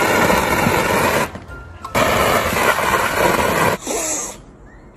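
Pressure washer running and spraying a water jet against a glass door, in two stretches with a short break about a second in. Near the end, a cat hisses briefly.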